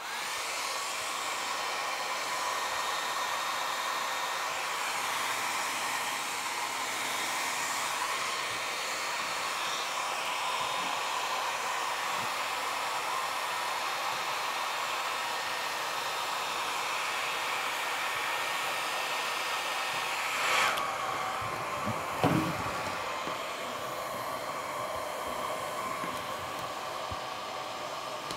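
Handheld hair dryer switched on and blowing steadily into the bristly 3D-printed PLA mane, heating the plastic hairs to soften them. Two short sharper sounds break in about twenty seconds in.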